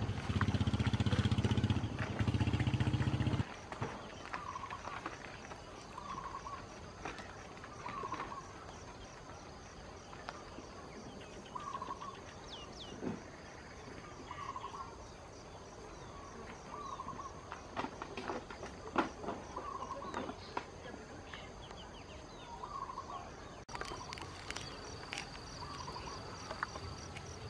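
Rural outdoor ambience: insects trilling steadily and a bird giving the same short call over and over, about once every second or so, with scattered light knocks. A low rumble runs for the first three and a half seconds, then cuts off.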